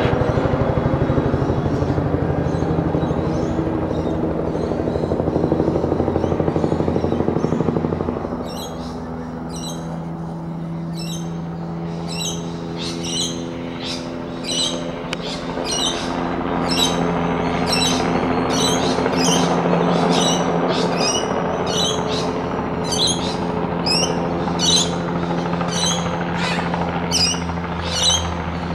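Low-flying light helicopter running steadily, its rotor beat and turbine tone louder for the first eight seconds and then fading. From then on a bird calls over it in a regular series of short high chirps, about one or two a second.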